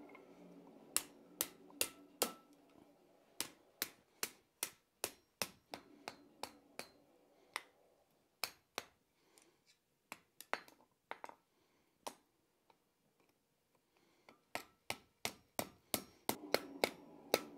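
Hand hammer striking a red-hot steel bar on an anvil to fold it in half, a run of sharp blows with short pauses between groups. The quickest run, about three blows a second, comes near the end.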